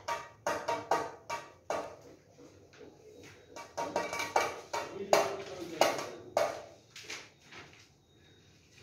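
Hand beating a stainless-steel plate like a drum: sharp metallic slaps with short ringing. They come in a steady beat for about two seconds, then more sparsely, and stop about a second before the end.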